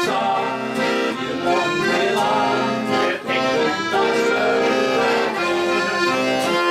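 Ballone Burini Cantus 34a accordion playing a melody over sustained chords, the instrumental introduction before the song's vocal begins.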